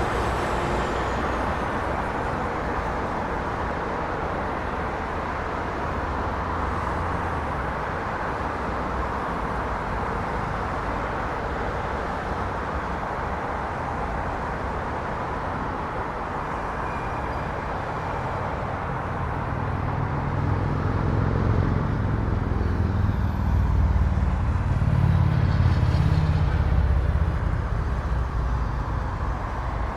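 Street traffic noise: a steady wash of passing vehicles. From about two-thirds of the way in, a louder low rumble builds as a heavier vehicle passes close, then eases off near the end.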